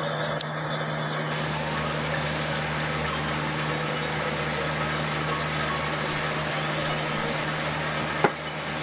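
Steady low mechanical hum with one even low tone, unchanging throughout, and a single sharp click near the end.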